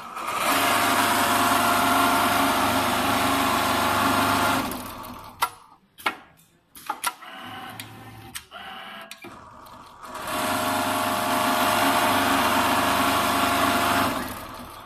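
Richpeace automatic pattern sewing machine stitching at high speed in two steady runs of about four seconds each, each one slowing to a stop. In the pause between the runs come a series of sharp clicks and knocks.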